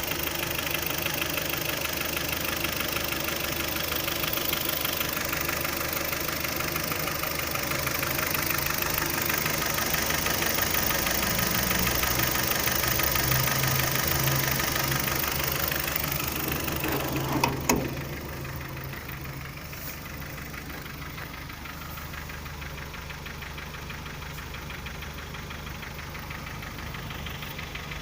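Kia Optima's G4KD 2.0-litre inline-four engine running with a knock. A couple of sharp clicks come about 17 seconds in, after which the engine sounds quieter.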